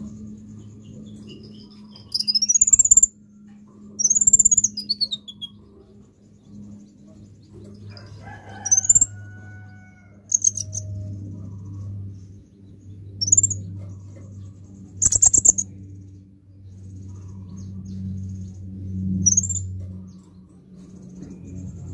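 Sunbird calling: high, thin chirps, two longer sweeping calls that rise and then fall near the start, then single sharp notes scattered through the rest. A steady low hum runs underneath.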